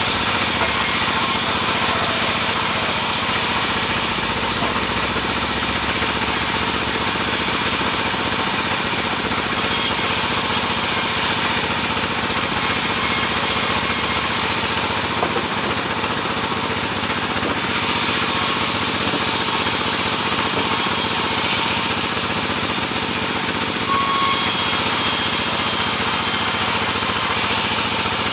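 Sawmill machinery running and sawing sengon (albizia) wood, a loud, steady mechanical din without a break.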